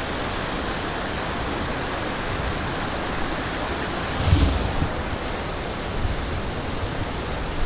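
Rushing stream water flowing hard across the road at a mountain water crossing, a steady loud roar, with a gust of wind buffeting the microphone about four seconds in.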